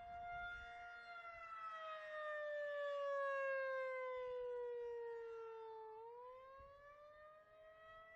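Outdoor tornado warning siren sounding for its routine monthly test: a steady tone, then a slow slide down in pitch over about five seconds and a rise back up near the end, loudest about three seconds in.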